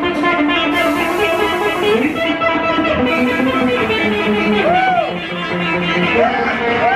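Live rock band playing, led by electric guitars, with some notes bent up and back down near the end, over drums and cymbals.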